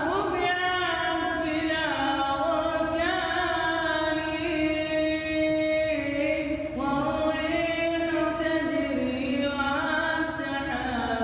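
A man singing unaccompanied in a slow, chant-like Arabic vocal line. He holds long notes that glide up and down in pitch, with a short break for breath about six and a half seconds in.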